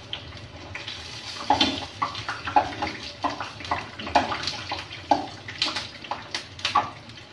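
Flour-coated potato fries sizzling in hot oil in a frying pan, a steady hiss with irregular pops and crackles. Water from the damp coating is spattering in the oil.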